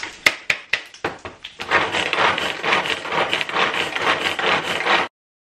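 A few sharp plastic clicks, then about a second and a half in, the fast continuous whirring rattle of a hand-pull mini food chopper: its blades spin in the plastic bowl and chop jarred vegetables. The sound stops suddenly near the end.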